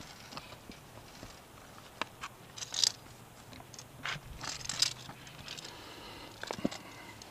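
A climber's gloved hands scraping and crunching over rock and loose gravel, with scattered sharp clicks and short scrapes.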